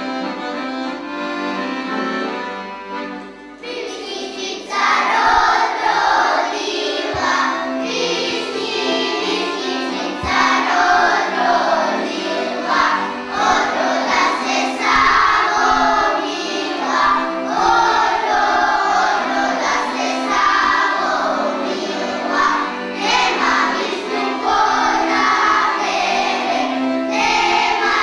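An accordion plays a tune, and about four seconds in a group of children starts singing along with it.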